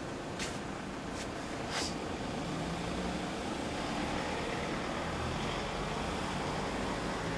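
Street traffic: a car passing on the road, a swell of tyre and engine noise over several seconds, after a few sharp clicks in the first two seconds.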